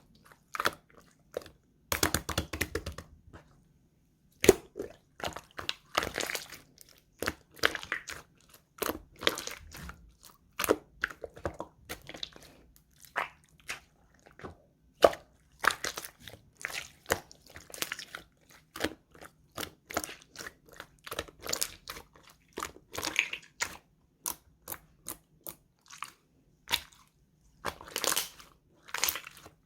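Clear slime being squished and pressed by hand, making irregular sticky pops and clicks in quick clusters, with a longer crackling stretch about two seconds in.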